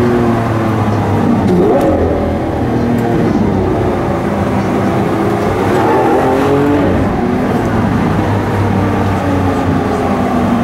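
Lamborghini Aventador's V12 engine heard from inside the cabin while driving slowly, the revs rising and falling several times.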